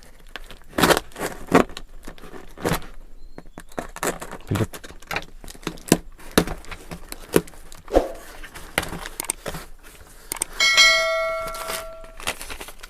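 A knife slitting the seal tape on a cardboard phone box, with scraping, clicks and rustling as the box is handled. Near the end a bell-like metallic ring sounds once and fades out after about a second and a half.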